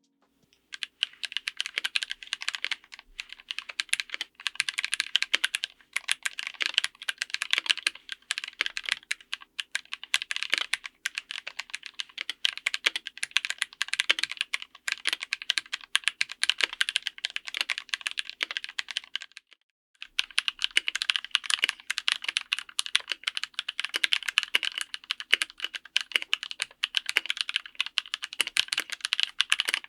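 Fast typing on a mechanical keyboard, a dense run of key clicks and clacks as the keycaps bottom out. It stops briefly about two-thirds of the way through, then starts again.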